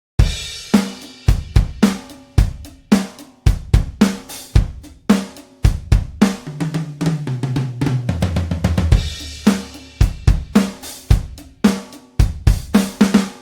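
Sampled acoustic drum kit from Toontrack EZdrummer 3 playing a groove of kick, snare and cymbals. It opens on a cymbal crash, runs a fill down the toms from high to low in the middle, lands on another crash, and rings out at the end.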